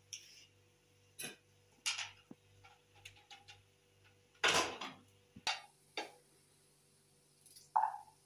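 A knife scraping and cutting carrots over china plates, with scattered light clicks, scrapes and clinks against the plates and one louder, longer rustling knock about halfway through. A short mid-pitched squeak comes near the end.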